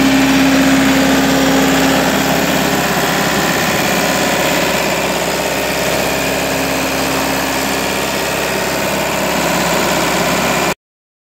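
Diesel engine of a 2007 Bobcat 442 B excavator idling steadily, with a steady whine over it for the first few seconds. The sound cuts off suddenly near the end.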